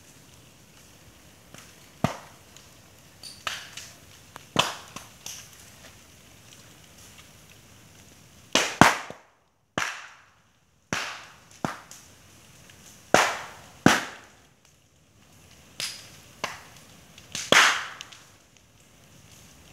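Burning bamboo culms bursting with sharp, loud bangs, about fifteen at irregular intervals and some in quick pairs, over the faint hiss of the fire. The bangs come as air and moisture sealed inside the hollow sections of the bamboo heat up until the culm splits.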